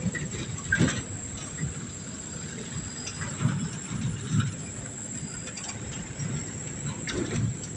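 Night insects keep up a steady high drone. Under it run irregular low rumbling and a few knocks, near the start and near the end.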